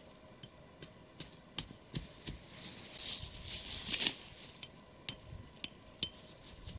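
Dry fallen leaves rustling and crunching as a person moves and kneels on the forest floor, with a louder rustle about three to four seconds in. Scattered sharp clicks and snaps run through it.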